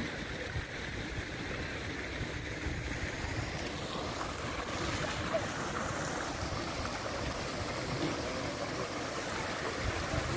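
Steady outdoor background noise: an even wash with a low rumble and no single sound standing out.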